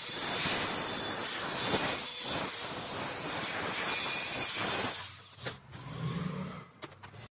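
Die grinder with a cylindrical wire brush running against the combustion chamber of a Honda Dream Yuga motorcycle cylinder head, a steady high hiss as it scrubs the chamber clean. It stops about five seconds in, leaving only faint handling noise.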